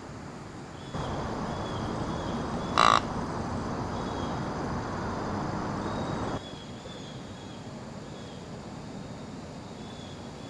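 Woodland ambience with repeated short high chirps from small calling creatures, over a stretch of steady rushing noise that starts suddenly about a second in and stops suddenly about six seconds in. A single loud crow caw cuts through about three seconds in.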